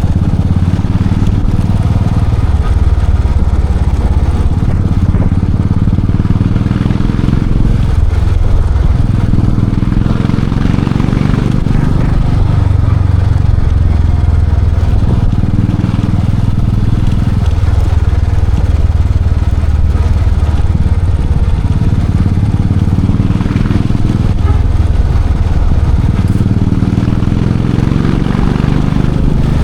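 Royal Enfield Classic 500's single-cylinder engine and exhaust running loud and low while being ridden. The note eases off briefly every few seconds and then picks up again, as with the throttle being rolled off and on.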